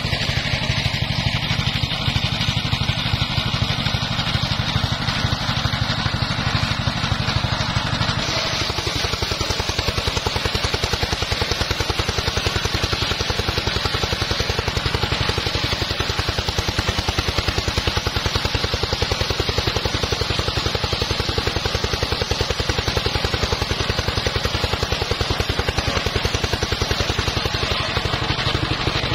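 Engine-driven homemade circular saw bench running steadily, its blade sawing a teak log. The sound changes character about eight seconds in.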